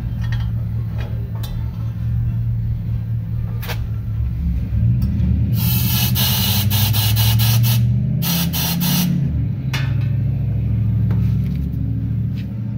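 Handheld long-wand gas torch burning out carbon buildup in a two-stroke motorized bike exhaust: a steady low rumble, with a run of loud hissing blasts from about five and a half to nine seconds in.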